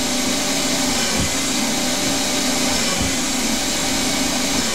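Small CNC lathe cutting a thread in free-cutting mild steel with a full-form carbide threading insert, under the steady hiss of a compressed-air coolant spray mister. A low hum from the machine dips briefly about every two seconds.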